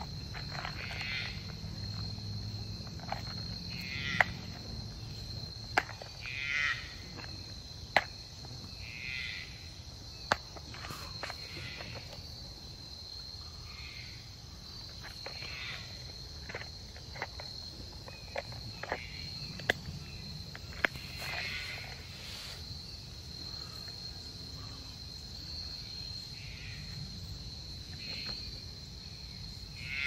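Woodland insects singing in one steady high-pitched drone. Short chirping calls repeat every couple of seconds, and there are scattered sharp clicks and snaps.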